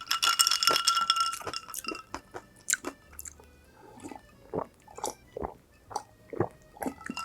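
Crunchy bites and chewing of crispy fried food: a loud, dense crunch in the first two seconds, then a run of shorter crunches and chewing clicks.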